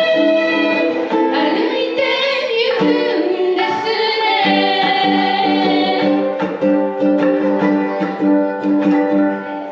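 Three ukuleles strummed together under group singing.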